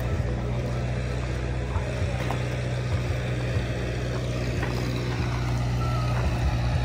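An engine running steadily with a low hum, with a few faint clicks.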